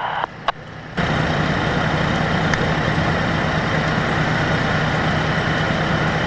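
Fire engine's diesel engine running steadily with a low hum, starting abruptly about a second in.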